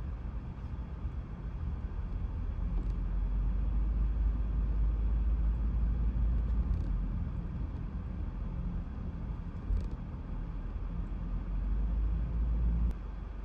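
Low rumble of a car's engine and tyres heard from inside the cabin while driving slowly, swelling and easing with speed and dropping suddenly near the end.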